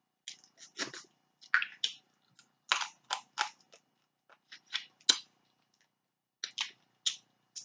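A person chewing and smacking while eating snow crab and boiled potatoes: irregular short clicks and smacks of the mouth.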